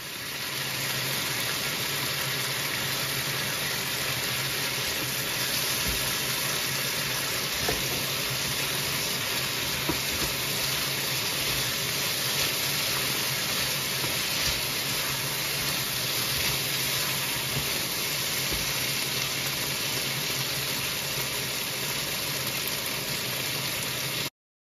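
Beef and red pepper strips sizzling steadily in oil in a hot wok as they are stir-fried with a spatula, with a few faint spatula knocks and a steady low hum beneath. It cuts off suddenly near the end.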